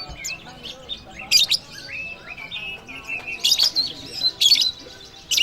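Several contest songbirds singing at once: overlapping whistled phrases, broken by loud, sharp chirps at about four moments.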